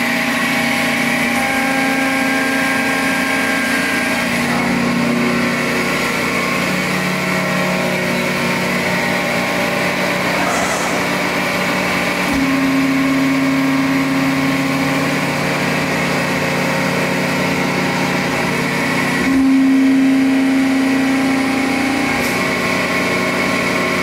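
Hydraulic pump and motor of an Accurpress 130-ton CNC press brake running steadily as the ram is cycled. A stronger tone comes in three times, the last, about three-quarters through, the loudest.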